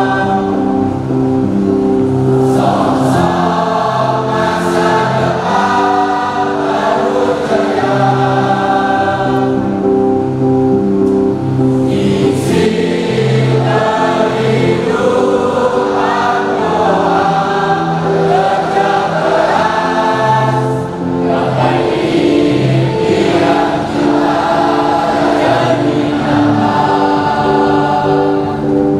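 A large group of voices singing together as a choir, long held notes in chords over a steady musical accompaniment.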